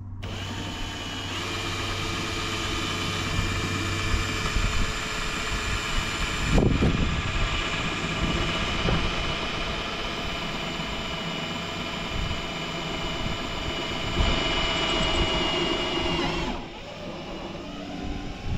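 Handheld power tool motor running at a steady pitch for about sixteen seconds, then switched off. A few knocks come from handling partway through.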